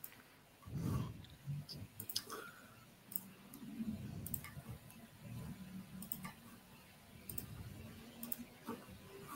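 Scattered sharp clicks of a computer mouse and keyboard being used to set up screen sharing, coming at irregular intervals over faint low background noise.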